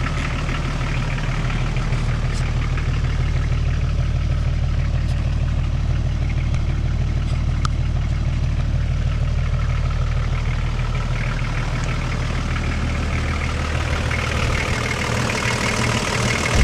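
Toyota Land Cruiser HJ60's turbo diesel engine idling steadily, just started for the first time after sitting about seven to eight months, and running smoothly.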